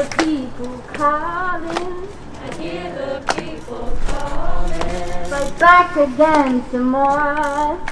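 A singer performing a cappella into a handheld microphone, holding long, wavering notes between shorter sung phrases, with a few sharp clicks scattered through.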